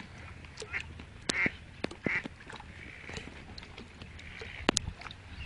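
Wild ducks quacking a few short times, with several sharp clicks, the loudest near the end.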